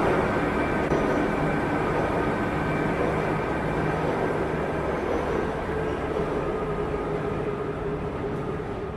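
Train running: a steady rumble and hiss with a few held tones, slowly getting quieter.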